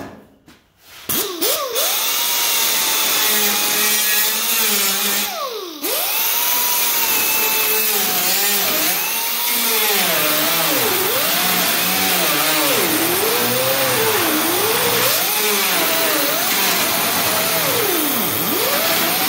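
A small right-angle grinder with a worn-down grinding wheel grinding steel, opening out a round hole in a sheet-steel hood. It spins up about a second in, winds down and restarts around five seconds in, then whines steadily. Its pitch dips again and again as the wheel bites into the metal under pressure.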